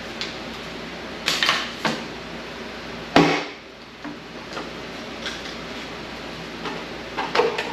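Short metallic clanks and clicks of hand tools working the last valve-cover bolts on a Chrysler 440 big-block, in a few quick strikes about a second and a half in and again near the end, with one sharp, louder knock about three seconds in.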